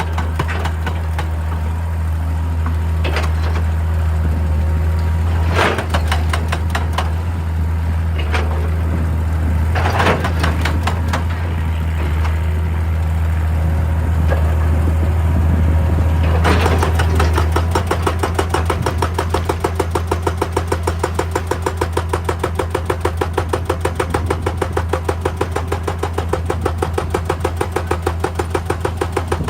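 Excavator's diesel engine running steadily, with a few knocks and scrapes in the first half. A little past halfway a hydraulic breaker starts hammering rock with rapid, regular blows.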